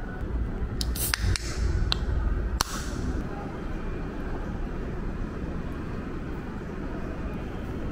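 Subway station concourse ambience: a steady low rumble, with a few sharp clicks and short hissing noises between about one and three seconds in.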